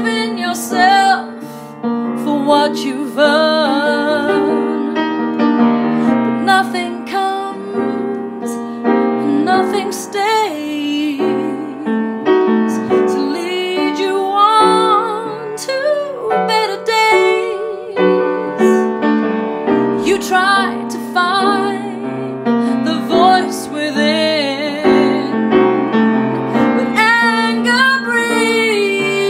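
A woman singing a slow soul-jazz song solo, with long wavering held notes, over her own piano accompaniment.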